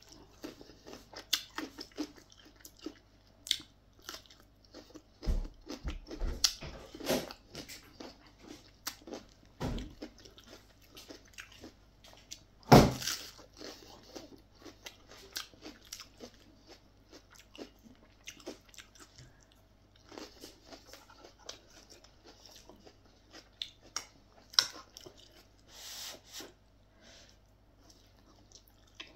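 Close-up chewing and crunching of raw cucumber and lettuce eaten with a Lao eggplant and canned-fish dip: many short crisp crunches, with one loud sharp crunch about 13 seconds in.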